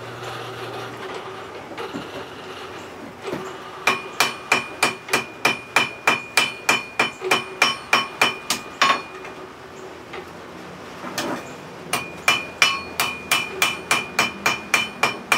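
Blacksmith's hammer striking a hot railroad-spike hatchet head on an anvil, the last shaping heat. There are two runs of quick, even blows, about three a second, each with a ringing metallic tone: one from about four seconds in, and a second starting near twelve seconds after a short pause.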